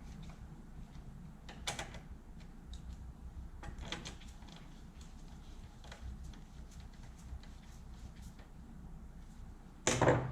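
Hands working on a small pressure washer engine, fitting plastic air box parts: scattered faint clicks and scrapes, with a louder noise of about half a second near the end.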